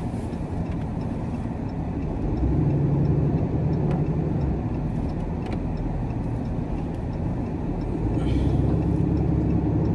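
Tow truck's engine and road noise heard from inside the cab while it drives loaded with an SUV on the bed. The engine note grows louder twice, about two and a half seconds in and again about eight seconds in, as the truck pulls ahead.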